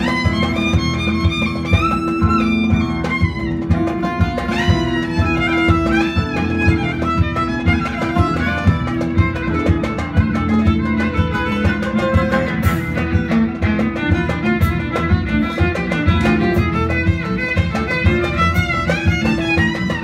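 Live band music: a violin plays a sliding melody over oud, electric bass and keyboard, with a steady beat underneath.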